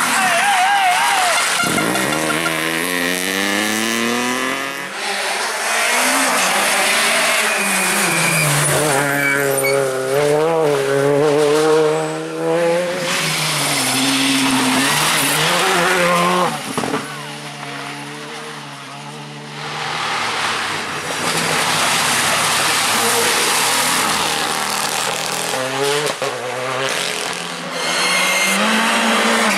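Rally cars on a tarmac special stage. The engines rev up and drop back through repeated gear changes as the cars pass, with tyre squeal. There is a quieter spell a little past the middle before the engine noise builds again.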